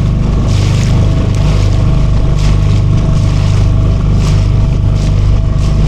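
Motorboat engine running steadily with a low, even drone, heard close by, with short rushes of hiss now and then.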